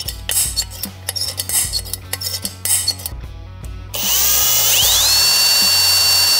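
Metal clicks and scrapes of hand-tool work, then about four seconds in a small electric power tool spins up with a rising whine and runs at a steady high whine, working on a snapped bolt in an engine crankcase.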